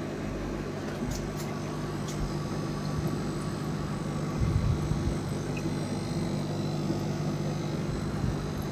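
Steady low hum of aquarium aeration: air pumps running and air bubbling up through sponge filters in the fish tanks.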